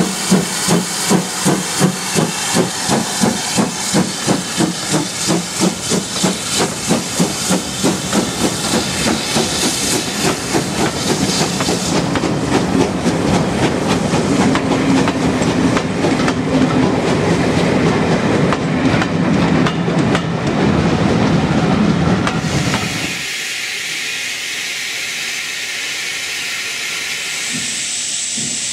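GWR 7800 Class steam locomotive 7820 Dinmore Manor working a train past, its exhaust beating about two to three times a second. The beats then give way to a steady rumble and wheel clatter as the coaches roll by. About twenty-three seconds in, the sound cuts abruptly to a steady steam hiss from a red tank engine.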